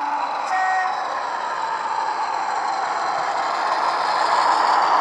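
Sound-fitted Bachmann Class 40 model locomotive playing its ESU LokSound diesel engine sound through two 27 mm speakers, growing louder as it approaches. There is a short tone about half a second in.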